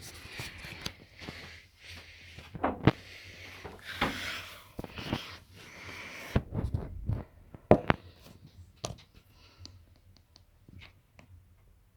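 Handling noises: rustling for the first few seconds, then a series of sharp knocks and small clicks from things being moved about.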